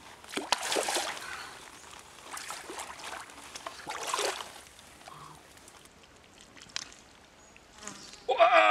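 Shallow stream water sloshing and splashing in a few short bursts as someone wades through it. Near the end a loud, wavering cry starts suddenly.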